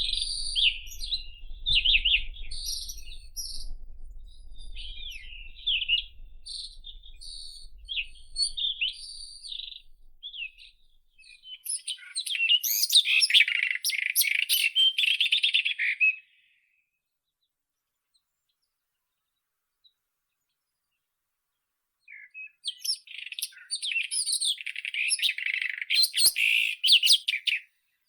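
White-throated robin (Irania gutturalis) singing: short, varied high phrases at first, then a dense rapid run of notes. The song breaks off into about six seconds of silence before another rapid burst of song.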